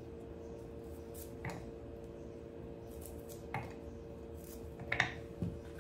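A few soft clicks of a kitchen knife cutting garlic and chili held in the hand, the pieces dropping into a blender jar. A steady low hum runs under them.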